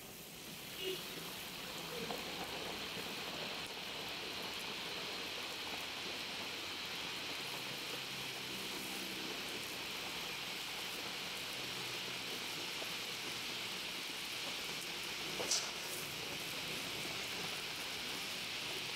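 Chunks of beef deep-frying in a large wok of hot oil with fried onions: a steady sizzle that builds over the first couple of seconds as the meat goes in, then holds even. A single short, sharp knock about fifteen seconds in.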